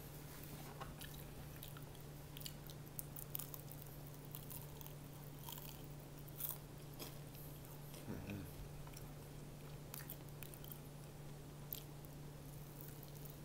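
Close-up biting and chewing of crispy fried chicken, with scattered crisp crunches and crackles, over a steady low hum.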